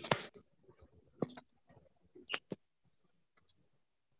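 A handful of short, sharp clicks and taps with quiet gaps between them, heard through a video-call microphone.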